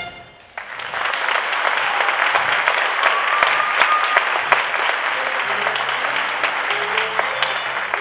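Audience applauding, starting about half a second in just after the music stops, with a brief whistle about three seconds in.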